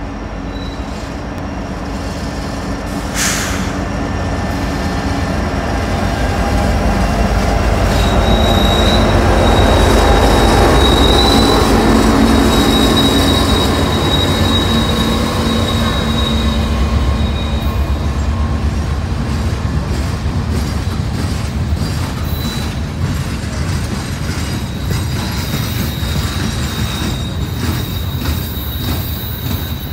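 Freight train passing close by: the diesel locomotives' low rumble builds to its loudest about ten seconds in, then the boxcars roll past with a clattering of wheels. A steady high-pitched wheel squeal sets in about eight seconds in, fades after about seventeen seconds and comes back faintly near the end.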